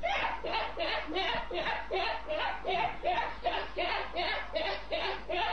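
A young woman laughing hard and without a break, a quick run of 'ha' sounds at about four a second.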